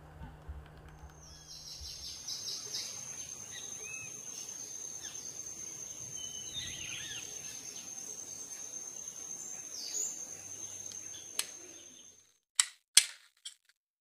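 Woodland ambience: chirping bird calls over a steady high-pitched whine, which cuts off suddenly. Then a handful of sharp, loud knocks, a black woodpecker pecking at tree bark.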